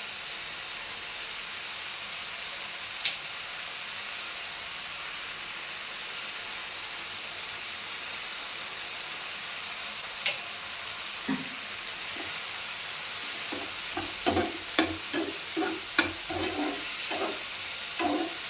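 Onion-and-tomato masala sizzling steadily in a frying pan. There are a few single knocks against the pan, then a quick run of spatula clinks and scrapes as it is stirred over the last five seconds.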